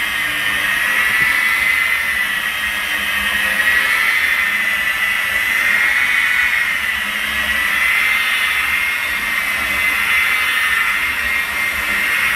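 Electric machine polisher with a foam pad running steadily on car paint. It makes a steady whine that wavers gently in pitch over a hiss, spreading a nano-polish prep polish before a ceramic coating.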